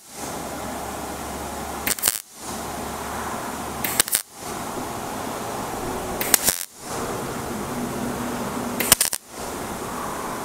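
Millermatic 141 MIG welder laying short tack welds on thin sheet metal: four brief bursts of arc, about two seconds apart. The welds are built up as separate overlapping tacks to keep heat down and avoid burn-through on the thin panel.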